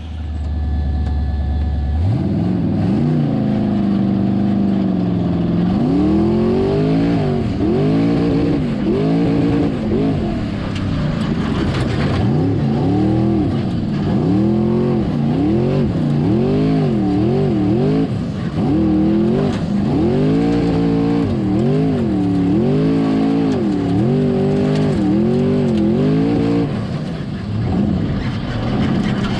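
Formula Offroad race buggy's engine, heard onboard, revved hard up and down over and over, about once a second, as the car works up the hill climb track. The revving eases off near the end.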